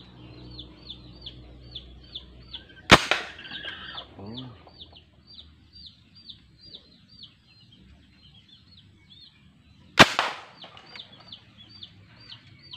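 Two shots from a homemade PVC gas gun styled on an M24 sniper rifle, each a single sharp pop, the first about three seconds in and the second about seven seconds later. Steady high chirping, about three a second, goes on throughout.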